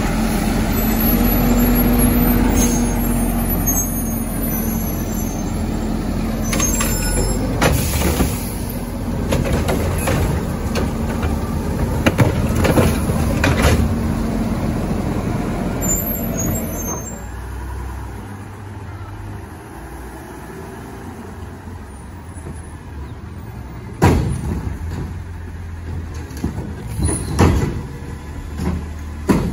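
Diesel garbage trucks working residential pickups: engines running, with repeated clanks and bangs as the automated arms lift, dump and set down plastic carts. It quietens in the second half, broken by a few sharp single bangs near the end.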